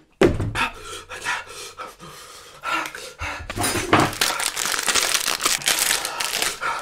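A man panting hard through his open mouth from the burn of an extremely spicy chip, the quick breaths getting heavier and louder about halfway through.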